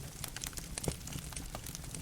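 Logs burning in a fireplace, crackling with irregular sharp pops and snaps over a low steady rumble of the flames, with one sharper pop about a second in.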